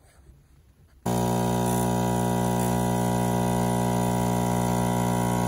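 Gaggia Anima Prestige super-automatic espresso machine's pump running while espresso pours for a cappuccino: a loud, steady electric hum that starts suddenly about a second in, after near quiet.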